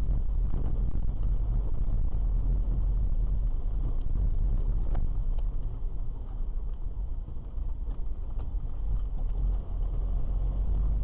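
Steady low rumble of a moving car's engine and tyres on the road, heard from inside the cabin, with a few faint ticks.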